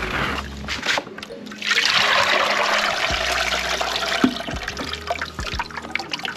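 Blended garden eggs being poured through a strainer. The liquid trickles and splashes steadily from about two seconds in, with a few light knocks.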